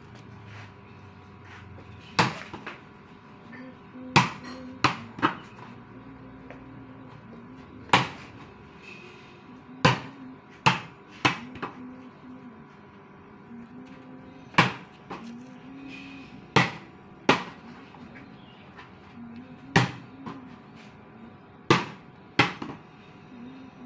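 A ball being bounce-passed back and forth on a paved surface: sharp smacks of it hitting the ground and being caught, every second or two, often in quick pairs or threes.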